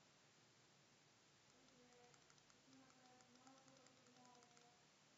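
Near silence: faint steady hiss of room tone, with faint light clicks and a faint voice in the background from about a second and a half in.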